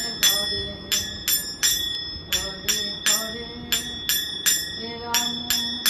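Puja hand bell (ghanti) rung steadily for the evening aarti. It gives about three clear strikes a second, each ringing on the same high tones, with a brief pause near two seconds.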